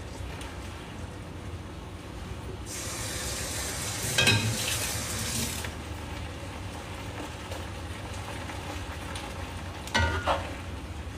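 Rice vermicelli frying in a wok with a soft, steady sizzle. A tap runs for about three seconds, starting a few seconds in, and there are a couple of clattering knocks, one during the running water and one near the end.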